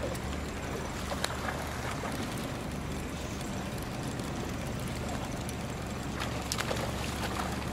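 Boat motor running steadily, with a sharp knock about a second in and two more near the end.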